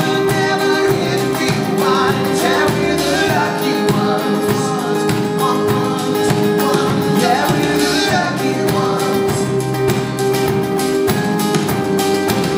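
A live rock band playing, with a male lead singer's voice over the band.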